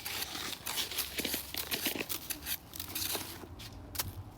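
Snow crunching as it is scooped and piled by hand, in a run of irregular crisp scrunches.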